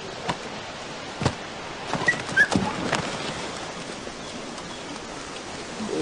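Steady outdoor ambience hiss with scattered sharp clicks and knocks, and two short high bird chirps a little after two seconds in.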